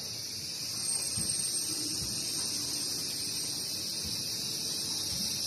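A steady high-pitched buzzing hiss with a thin whistle-like tone on top, under a few faint low thumps.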